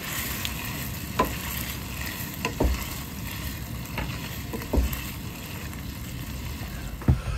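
Pot of chicken noodle soup on a single-burner gas stove being stirred with a wooden spatula, which knocks against the pot several times over a steady hiss.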